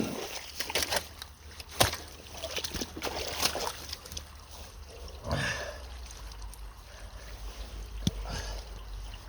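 Splashing and irregular sharp knocks and cracks from hands working roots and sticks out of a clogged culvert in shallow water, over a low trickle of water.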